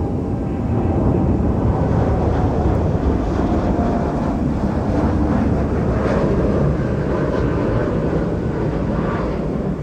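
Jet engines of a departing Boeing 737-8 MAX (CFM LEAP-1B turbofans) as it climbs out: a loud, steady low rumble with a faint tone slowly falling in pitch.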